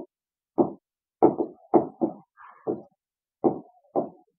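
A stylus tapping and knocking on the hard surface of a touchscreen board while handwriting: about eight short, soft knocks at an uneven pace of roughly two a second, with silence between.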